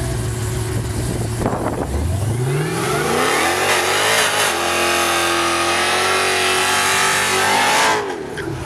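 Drag-racing car launching off the line and accelerating hard down the strip: a burst at the launch, then the engine note climbs steeply before holding high and loud. The sound stops suddenly near the end.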